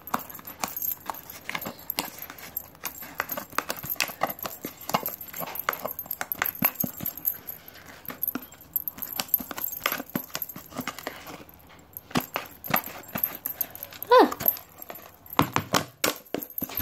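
Fluffy slime being squeezed and poked by hand in a plastic tub, giving many small sticky clicks and pops. A short falling squeak about fourteen seconds in.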